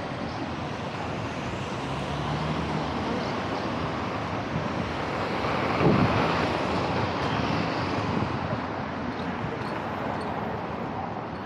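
City street traffic: cars driving through an intersection over a steady road hiss, with one car passing close about halfway through.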